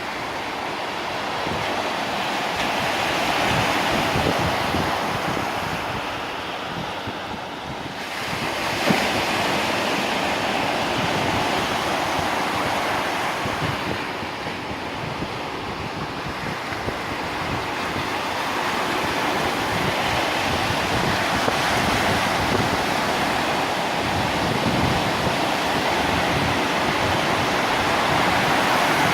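Stormy sea surf breaking on a sandy beach, a continuous wash of waves that swells and eases every few seconds, with wind buffeting the microphone.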